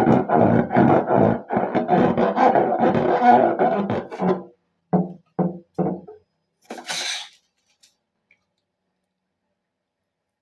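Rhythmic background music that stops about four and a half seconds in, followed by three short hits and a brief hissing burst about seven seconds in.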